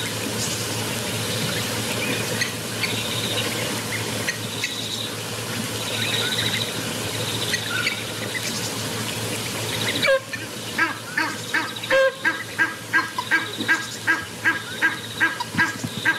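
Steady outdoor hiss with scattered high bird chirps. About ten seconds in, a waterbird such as a goose starts a fast, regular run of honking calls, a little over two a second.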